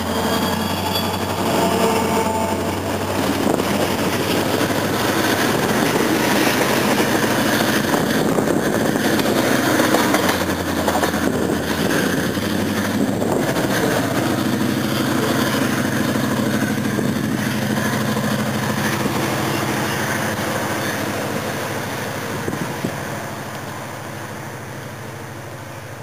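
CSX diesel freight locomotives passing close and working, followed by a string of tank cars rolling by on the rails. The noise holds loud for most of the time, with a steady low engine drone coming in about halfway, then fades as the train moves away.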